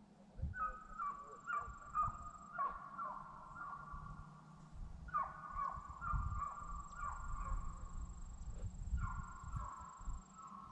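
Calls from animals, several at a time in three bouts, over a low rumble on the microphone.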